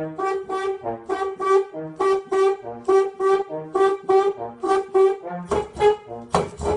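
French horn played in short, detached notes in a bouncy rhythm, one middle note repeated again and again with lower notes in between.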